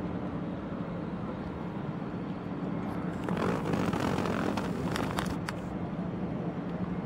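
Steady engine hum of aircraft running on an airport ramp. About three seconds in, a louder rushing swell with a few sharp clicks rises and fades over about two seconds.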